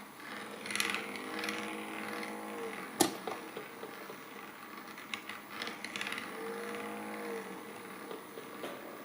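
Magnetic stirrer spinning a small steel top, a mechanical whirring and rattling with scattered clicks. Twice a pitched hum swells and bends slightly in pitch, and a single sharp click about three seconds in is the loudest sound.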